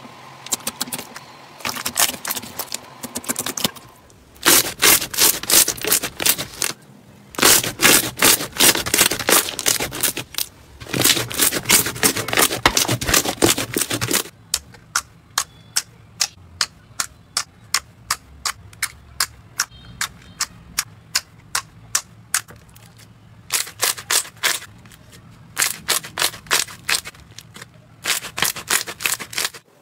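Hands squishing and pressing slime, with crackling and popping from air pockets trapped in it. Dense runs of crackles come first, then a stretch of single pops about twice a second, then more crackling near the end.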